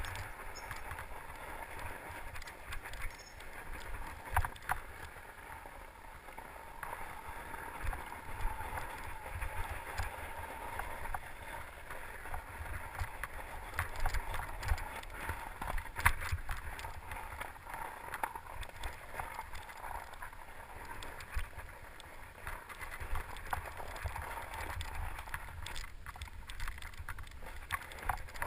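Mountain bike riding over a rocky, snow-covered trail: a steady rolling noise from the tyres, with frequent knocks and rattles from the bike as it bounces over rocks and roots.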